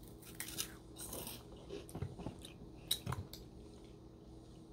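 Crunching and chewing of Flamin' Hot snack fries, a run of short crisp crunches over the first three and a half seconds or so.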